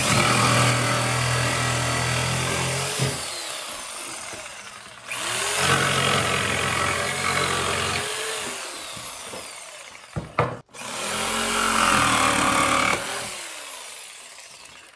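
Corded jigsaw ripping a wooden stair tread lengthwise to width. It runs in three stretches of about five seconds each; each starts sharply with the motor whining up to speed, then fades as the cut goes on.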